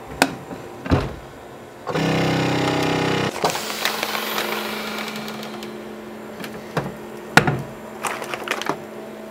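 Avid Armor chamber vacuum sealer: a few clicks of the lid and Mylar bags, then the machine runs loudly for about a second and a half, followed by a hiss that fades over a few seconds above a steady low hum, with more clicks and handling noise near the end.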